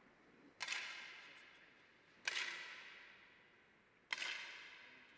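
Three compressed-air 10 m target rifle shots, each a sharp crack with a long echoing tail in a large hall, coming about every second and a half to two seconds.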